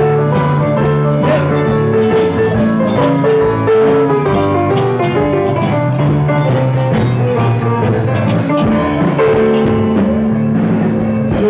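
Live band playing an instrumental passage, with electric guitars and a drum kit.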